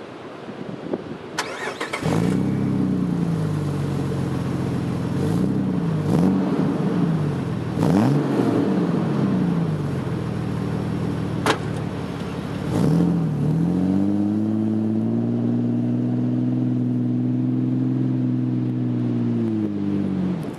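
Jeep Wrangler TJ's 4.0 straight-six running through a Banks Monster exhaust: it comes in about two seconds in, is revved in several quick throttle blips, then held at higher revs for several seconds before dropping off near the end.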